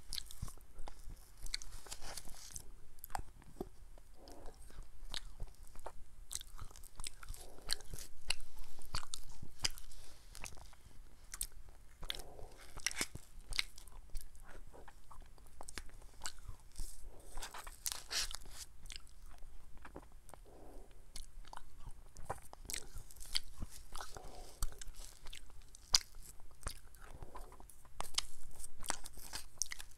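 Close-miked eating sounds of a person spooning ice cream from a paper cup with a plastic spoon: irregular wet lip smacks, spoon clicks and chewing, with louder stretches a third of the way in and near the end.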